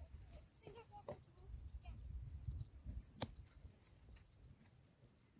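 An insect chirping: a steady, high-pitched pulsing call repeating about nine times a second without a break, with a single sharp click about three seconds in.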